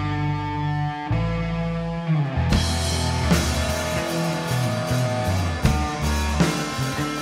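Live rock band: electric guitar and bass ring out held notes, then the drum kit comes in with cymbals about two and a half seconds in and the full band plays on.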